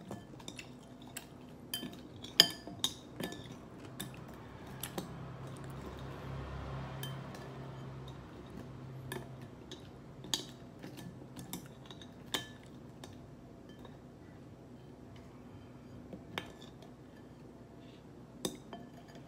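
Stainless steel chopsticks clinking and scraping against a ceramic bowl: scattered sharp clinks at irregular intervals, the loudest about two and a half seconds in.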